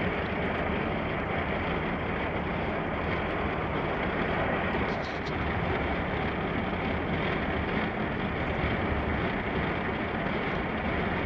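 Steady road, tyre and engine noise inside the cab of an Airstream Class A motorhome cruising on the interstate.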